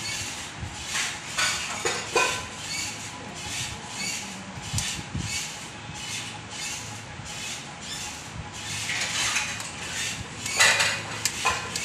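Kitchen knife sawing back and forth through a bread sandwich on a steel plate, a scratchy stroke about twice a second.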